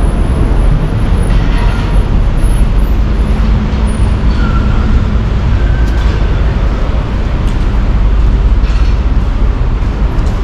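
City street traffic noise: a steady, loud rumble, heaviest at the low end.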